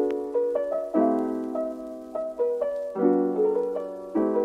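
Background piano music: chords struck about once a second, each fading before the next, with a simple melody above.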